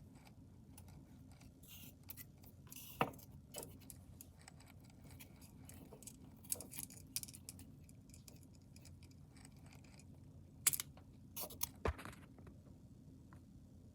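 Scattered light clicks and rattles of small hard parts being handled, over a steady low hum; the sharpest clicks come about three seconds in and twice near the end.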